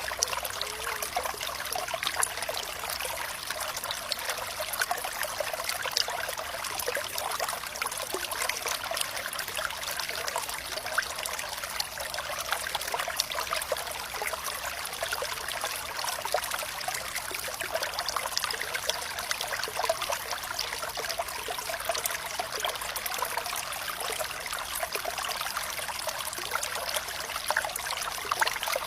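Flowing water trickling and babbling steadily, a dense patter of small splashes and bubbles with hardly any low rumble.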